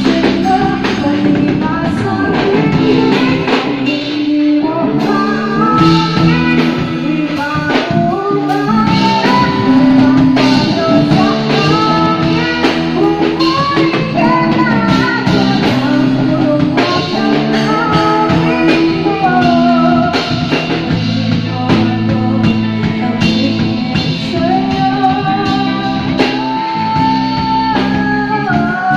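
Live band playing a song with a woman singing lead into a microphone, backed by electric guitar, bass guitar and drum kit, amplified through PA speakers.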